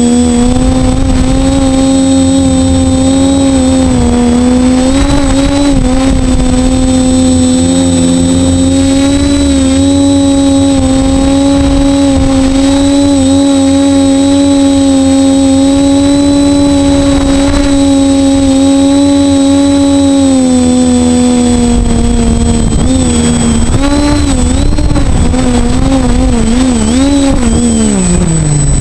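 Multirotor drone's four brushless motors and propellers (a DJI 450 quadcopter on worn 2208 motors) whining steadily in flight. The pitch wobbles with quick throttle changes late on, then drops away sharply at the end as the motors spool down.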